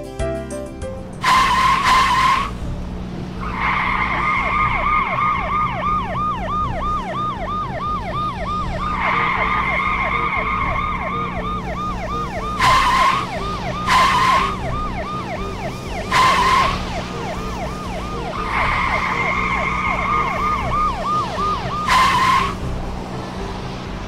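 Cartoon police car siren wailing in a fast, repeating up-and-down yelp, broken by five short, loud tyre screeches, with a steady low hum underneath.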